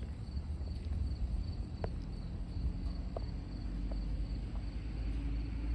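Water drops dripping onto cans, a few scattered pitched plinks a second or so apart, over a steady low rumble, with faint high chirping of crickets.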